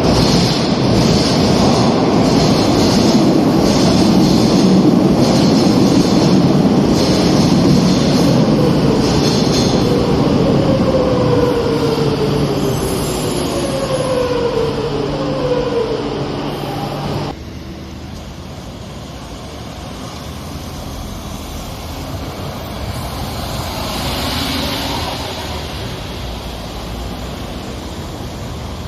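A Madrid Metro train running loudly through the station, its motor whine falling in pitch several times as it slows. At about 17 seconds the sound cuts off abruptly to a quieter, steady rumble.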